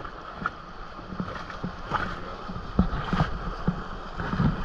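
Rushing river water heard from aboard an inflatable raft, with irregular knocks and splashes against the boat.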